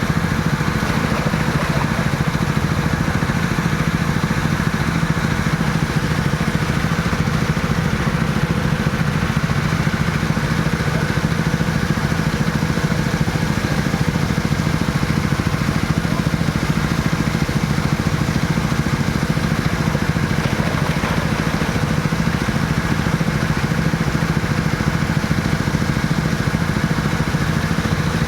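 Vehicle engine idling steadily at an even pitch.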